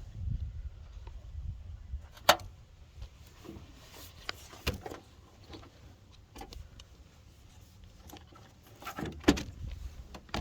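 Handling noise: scattered light clicks and knocks of things being moved about, with two sharper knocks, about two seconds in and about nine seconds in.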